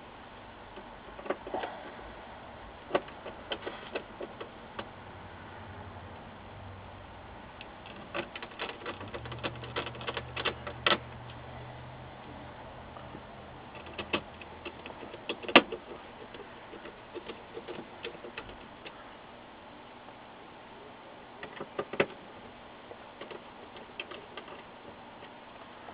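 Screws being driven by a hand screwdriver into the power supply board and metal chassis of an LCD monitor: scattered small clicks and metallic taps, the sharpest about two-thirds of the way through.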